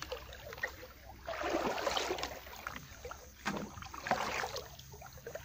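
Water sloshing and splashing as someone wades and moves a fishing net through shallow water: one longer swirl of splashing about a second in, then two shorter splashes.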